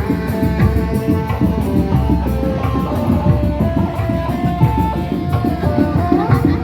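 Live kuda lumping music: fast, dense hand drumming on kendang drums under a held melody line whose notes step and slide in pitch, with a rising slide near the end.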